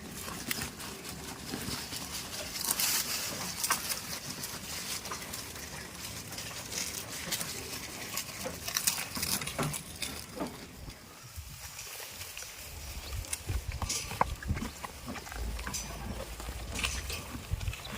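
Goats moving about, with irregular rustling and clicking sounds. A low rumble comes in during the second half.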